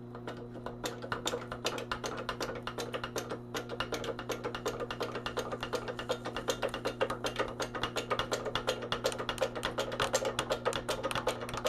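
Music with a fast, clicking percussive beat, over a steady low hum.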